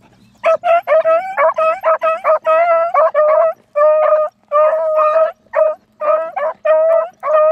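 Beagles baying on a rabbit's scent trail: a quick, steady run of short, ringing yelps, about two a second.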